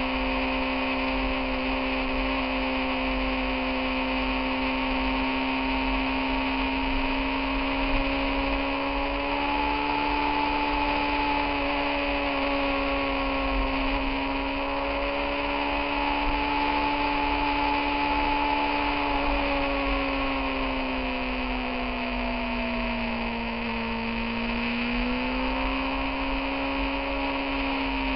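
Motorcycle engine running at a steady cruising pitch under a rush of wind noise. About three quarters of the way through, the engine note drops and then climbs back up.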